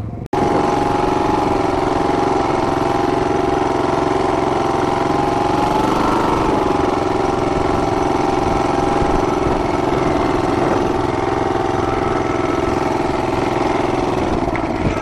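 Loud small engine of the vehicle carrying the camera, running at a steady speed as it drives along. Its pitch rises and dips slightly about six seconds in.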